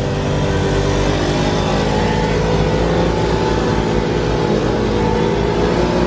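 Small moped engines running as several scooters ride along the road, the nearest one passing close to the microphone near the end.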